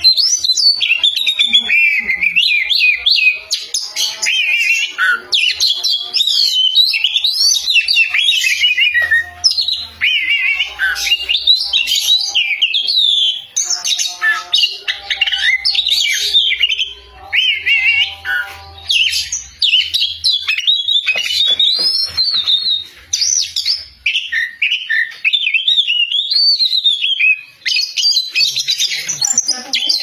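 Oriental magpie-robin (kacer) singing loudly and without a break: a rapid, varied stream of clear whistles and quick rising and falling sweeps.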